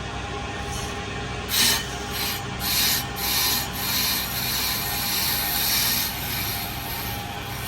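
A brake disc lathe skimming a brake disc with a wave in it, its motor running steadily. About a second and a half in, the cutting blade starts scraping across the spinning metal disc in a series of short hissing scrapes, then a longer steady scrape that fades near the end.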